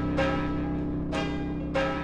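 Background music: bell-like struck notes, about two a second, ringing over a held low chord.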